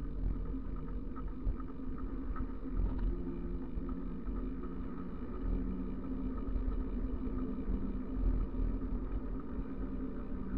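Steady low rumble and drone of a bicycle coasting fast downhill on asphalt: tyre noise on the road, carried through the bike-mounted camera.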